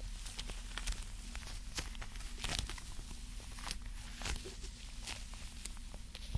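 Hands handling an object close to the microphone: irregular light taps and short scratchy strokes, a few every second.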